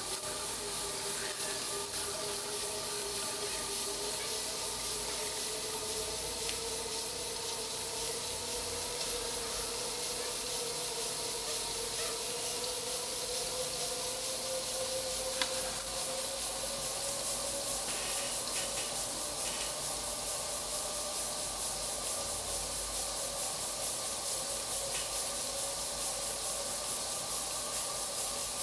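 Homemade aeolipile (Hero's steam engine), a water-filled tin can spinning on its narrowed steam tubes, hissing steadily as steam jets out. A faint tone under the hiss slowly rises in pitch during the first half.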